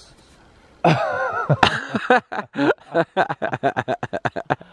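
Laughter: a wavering voiced cry about a second in, then a long run of quick chuckles, about five a second, trailing off near the end.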